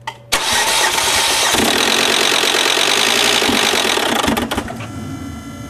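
2010 Volvo C70's starter cranking the engine for about four seconds without it catching, a no-start. The cranking fades out, leaving a steady whirring whine: the rotating sound from under the left side of the engine with the key left at position II.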